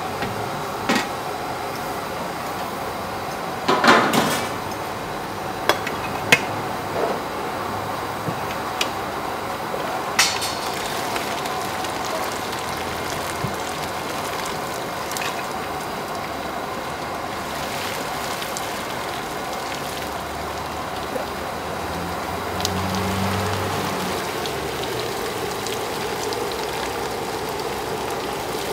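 A steel ladle and aluminium pot clanking, with a cluster of loud clanks about four seconds in, as hot water is scooped from a large stockpot and poured splashing over a whole suckling pig on a spit. A steady background hum runs underneath.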